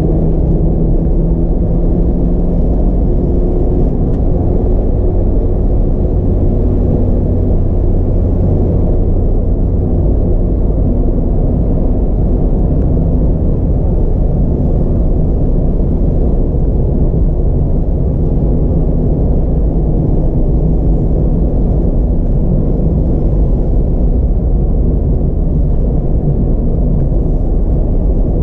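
Mazda MX-5 RF's four-cylinder petrol engine and tyre noise, heard from inside the cabin while driving: a steady low rumble with faint engine tones in it.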